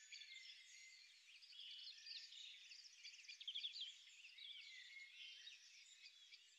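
Faint chorus of many songbirds chirping, trilling and whistling at once, fading slowly toward the end.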